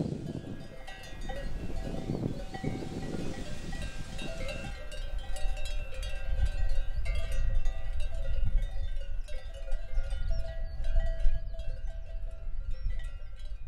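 Many livestock bells clanking and ringing irregularly, as on a grazing flock or herd. The clanks grow busier about five seconds in, over a low rumble.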